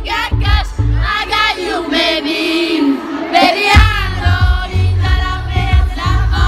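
Music with sung vocals over a heavy bass beat. The bass drops out for about a second and a half in the middle, then comes back.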